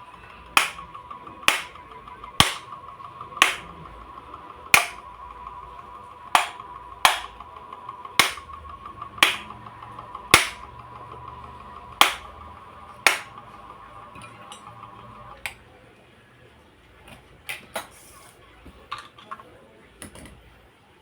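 A series of sharp knocks, about one a second, over a steady high hum; the hum stops about fifteen seconds in, leaving a few scattered clicks.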